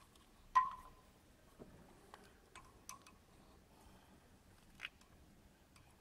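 Faint metallic clicks and taps of a screwdriver and waveguide components being handled while the flange screws are fastened. The loudest click comes about half a second in and rings briefly, followed by a handful of smaller irregular ticks.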